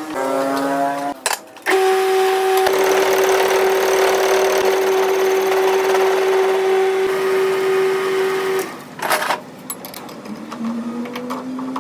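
A workshop power tool's motor running at a steady pitch with a hiss for about seven seconds, then stopping, with shorter machine whines before and after.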